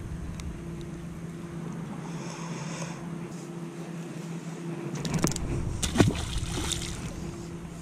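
A peacock bass tossed back into the water lands with a single sharp splash about six seconds in, after a few scuffs as it is handled. A steady low hum runs underneath.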